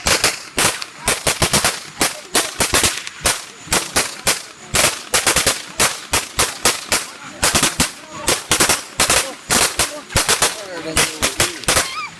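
Fireworks going off in a rapid, irregular string of loud bangs, several a second, like a long string of firecrackers, with no let-up.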